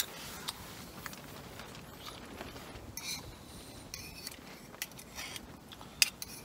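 Metal spoon scraping and clinking in a small metal camping pot while scooping up spaghetti and meatballs. There are several short scrapes, with a sharp clink about six seconds in.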